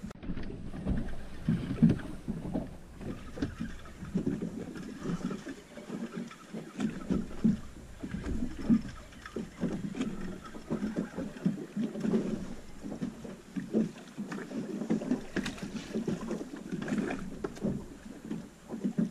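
Small waves lapping and slapping irregularly against the hull of a small 21-foot pilothouse boat as it drifts.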